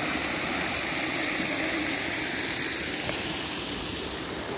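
Fountain jets spraying and splashing into the basin, a steady rush of water with no music playing; it eases slightly near the end.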